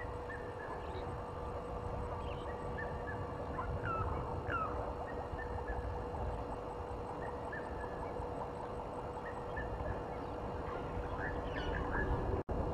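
Wild birds calling in short, scattered chirps and quick rising notes over a steady low hum and a low rumbling background. The sound cuts out for a moment near the end.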